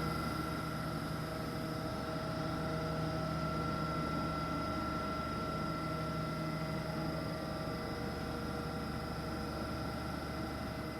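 Santiago Metro NS-16 train giving a steady hum with several constant whining tones over a noisy rumble; the pitch holds level throughout.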